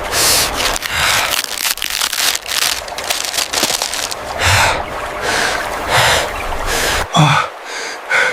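Splashing, rushing water with a crackly hiss that cuts off suddenly about seven seconds in, followed by a short falling vocal sound.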